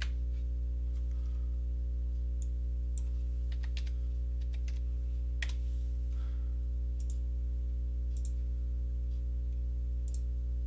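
Scattered computer mouse clicks and keyboard keystrokes, about a dozen light taps spread out at uneven intervals, over a steady electrical hum from the recording setup.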